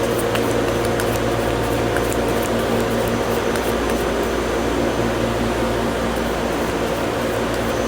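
Steady hum and hiss of air-conditioning or ventilation, with a few faint ticks about half a second in.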